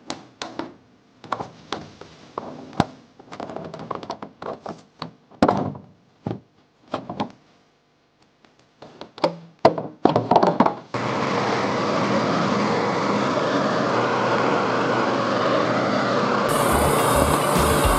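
Irregular clicks and knocks, as of parts being handled. About eleven seconds in, a loud, steady, dense sound starts suddenly and runs on.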